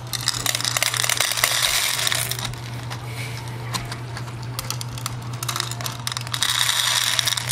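Dry cat kibble clattering into a stainless steel bowl as a WOPET automatic pet feeder dispenses a meal: a dense rattle of small pellets hitting metal, heaviest near the start and again near the end.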